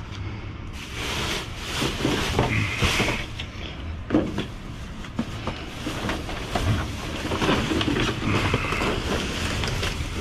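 Plastic bags and flattened cardboard crinkling and scraping as gloved hands dig through them, an irregular run of crackles starting about a second in.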